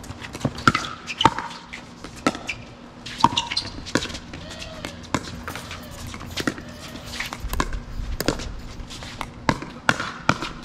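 Pickleball rally: paddles striking the plastic ball back and forth, a long run of sharp pops at uneven spacing, often less than a second apart.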